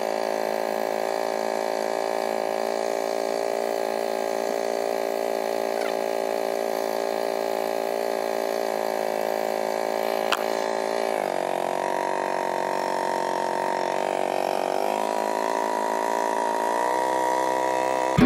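Sailboat's engine running steadily while motoring. It drops in pitch about eleven seconds in, then climbs back in steps near the end as the throttle is changed, with a single sharp click a little before the drop.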